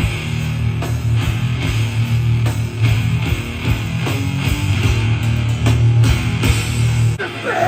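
Live hardcore band playing loud: a heavy, distorted electric guitar and bass riff with pounding drums. The low end drops out about seven seconds in.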